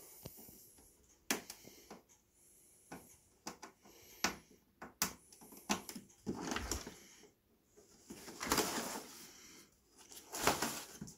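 Hands handling and rubbing the plastic casing of a Cooper&Hunter dehumidifier: scattered light clicks and knocks, with a few short stretches of rubbing and rustling in the second half.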